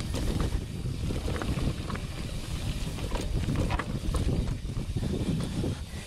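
Mountain bike rolling over a rocky gravel trail: a steady rush of wind on the microphone, with tyre crunch and frequent short clicks and rattles from the bike over the stones.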